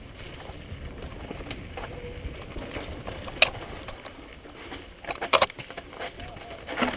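Mountain bike riding down a rough dirt trail: a steady low rumble of tyres on dirt, with sharp rattles as the bike jolts over rocks, one about three and a half seconds in and a quick cluster a little after five seconds.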